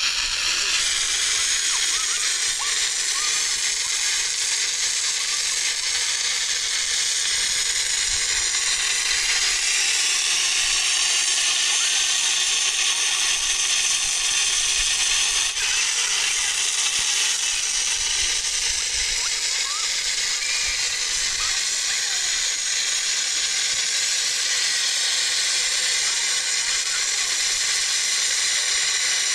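Steady hiss of rushing water, like a waterfall or fast mountain stream, even and unbroken throughout.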